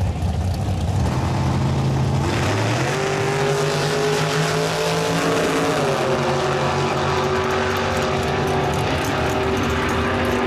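Drag race launch: a rail dragster and a finned full-size car rumble at the start line, then about two seconds in both go to full throttle. The engine note climbs in pitch, drops once about six seconds in at a gear change, and then holds a steady flat-out howl down the strip.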